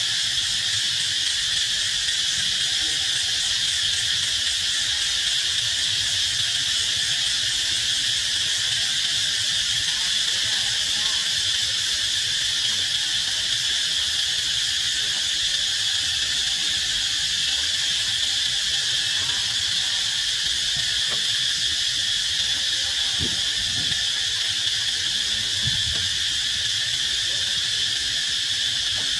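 A steady, high-pitched chorus of insects that drones on without a break.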